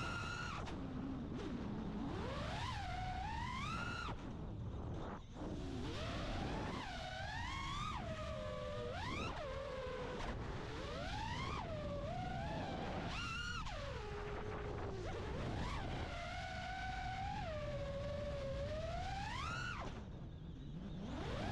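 The brushless motors and propellers of a 5-inch FPV freestyle quadcopter (EMAX ECO II 2207 1900kv) whining, the pitch sweeping up and down with every throttle punch and easing. The whine drops off briefly about five seconds in and again near the end as the throttle is cut for flips, over a low rumble of prop wash and wind.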